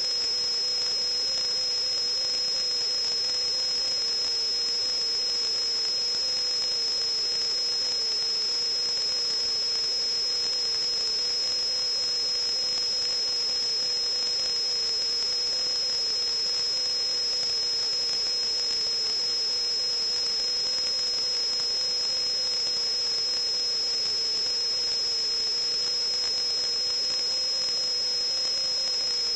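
Steady high-pitched electronic whine over an even hiss, with a fainter lower tone that wavers slightly, unchanging throughout, like electrical noise from recording equipment.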